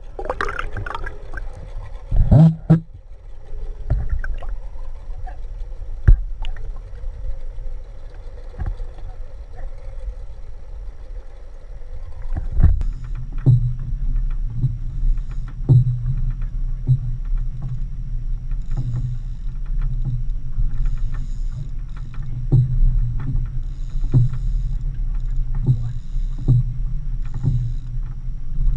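Muffled underwater sound of a hooked mahi-mahi thrashing and splashing at the surface, with a louder splash about two seconds in. About halfway through it changes to a steady low rumble on an open fishing boat, with frequent irregular knocks of water and gear against the hull.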